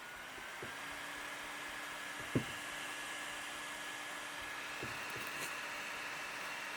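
HP EliteBook 8560w laptop's cooling fan spinning up to a steady whir, its pitch rising and then holding. A steady low hum joins about half a second in, and a single sharp click comes a little over two seconds in.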